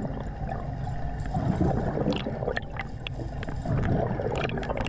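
Underwater bubbling and gurgling of a diver's exhaled air, over a low rumble, with a few short sharp clicks.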